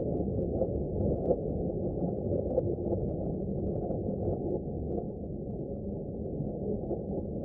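Steady, muffled rumble of a train in motion, heard from inside the carriage, with faint scattered clicks.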